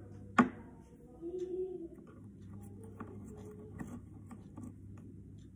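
A single sharp click about half a second in, then a few faint light taps: small painting supplies, a poster-colour jar and brush, being handled on a table. A low steady hum runs underneath.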